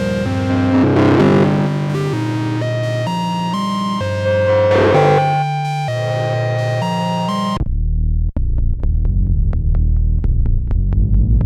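Roland SE-02 analog synthesizer playing a stepping sequenced melody with bright, buzzy overtones. About seven and a half seconds in, it cuts abruptly to a low bass pattern with a steady run of sharp ticks over it.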